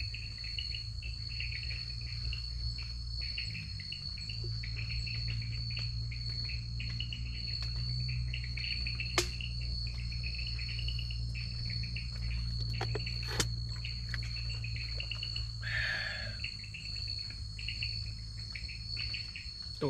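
Night jungle insects: crickets chirping in rapid pulses over a steady high-pitched insect drone, with a low steady hum underneath. Two sharp clicks stand out, about nine and thirteen seconds in.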